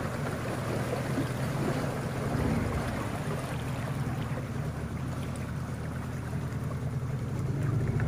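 A small river boat's engine running steadily at low speed, with water washing along the hull as the boat moves.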